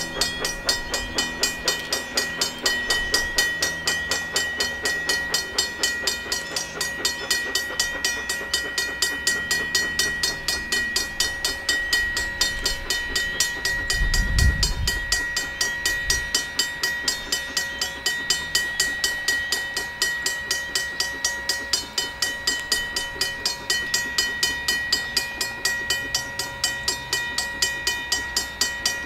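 Steam locomotive #97, a 1923 ALCO Cooke engine, and its train running, with a regular beat about three times a second and a steady high tone throughout. A low thump about halfway through is the loudest moment.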